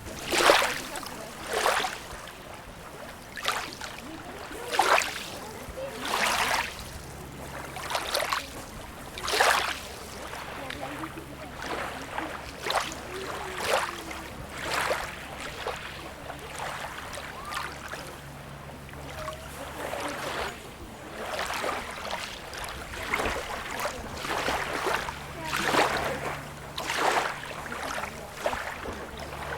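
Small sea waves lapping and splashing at the shore, a short splash every second or two over a steady wash of water.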